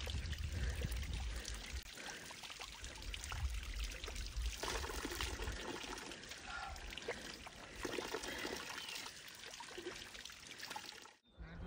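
Spring water pouring from a wooden pipe spout, splattering into cupped hands and onto the stones and puddle below. The splashing stops suddenly near the end.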